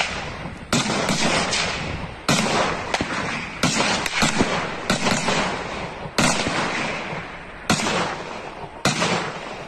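Rifle shots fired one after another, about one every second and a half, each ringing on in a long echo, with fainter shots in between.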